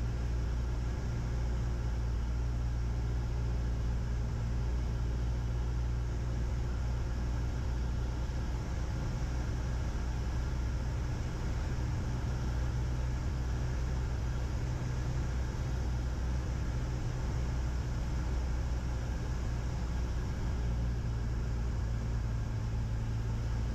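Cessna 172's single piston engine and propeller droning steadily in cruise, heard inside the cabin, a low even hum with no change in pitch.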